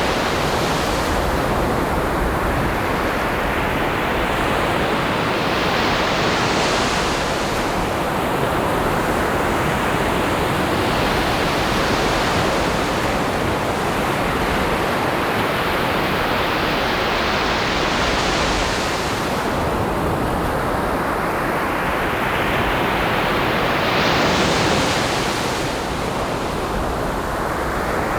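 Ocean surf: a continuous wash of waves, with a breaker surging in and hissing about every five to six seconds, four times in all.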